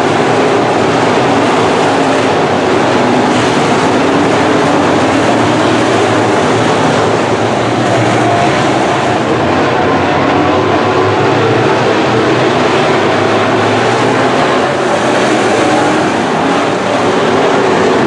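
A field of IMCA Modified dirt-track race cars racing around the oval, their V8 engines running loud and steady as they pass and circle the track.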